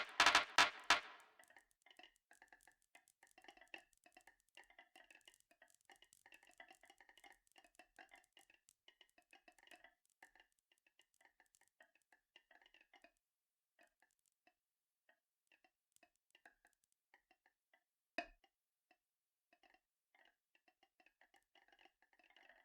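Marbles rolling and clacking along a marble run track: a few loud clacks at the start, then a faint, fast, uneven clatter that thins to scattered ticks after about thirteen seconds, with one sharper knock near eighteen seconds.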